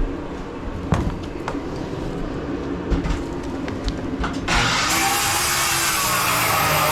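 A few sharp knocks over a low hum, then about two-thirds of the way through a loud electric power tool starts and runs steadily.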